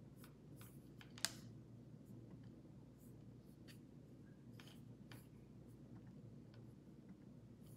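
Near silence: faint room tone with a few soft scattered clicks and taps, and one sharper click about a second in.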